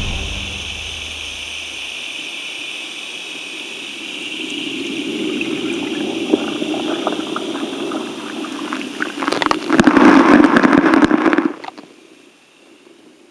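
Water noise that swells from about four seconds in and is loudest with dense crackling clicks about ten seconds in, then cuts off suddenly near the end.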